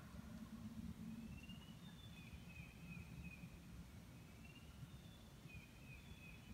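Faint, high chirping bird calls repeating every second or so in a quiet dawn woodland, over a low rumble, with a low steady hum that fades about a second in.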